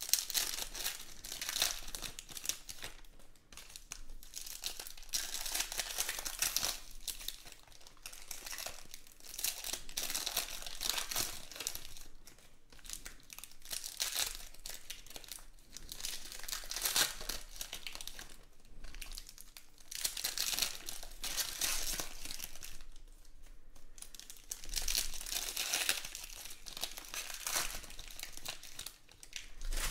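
Foil trading-card pack wrappers being torn open and crinkled by hand. The crinkling comes in bouts of a few seconds each, with short lulls between.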